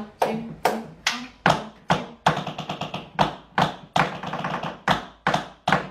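Tap shoes striking a wooden tap board in a nerve-tap drill done on the dig. Sharp accented strikes fall about two and a half times a second, with rapid trembling taps filling the gaps between them.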